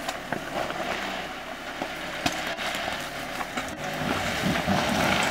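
Suzuki Jimny engine running at low revs as it crawls over loose rocks, with a few sharp clicks of stones under the tyres; the engine swells a little near the end.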